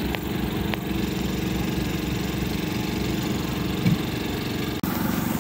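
A small engine running steadily at idle, a continuous even drone, with a few light clicks and a soft knock about four seconds in as the grill lid is shut.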